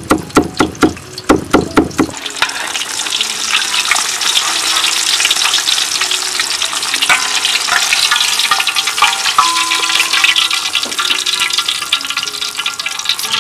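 A cleaver chopping green onions on a wooden cutting board: a quick run of sharp chops for about the first two seconds. Then a whole fish deep-frying in hot oil, a steady sizzle.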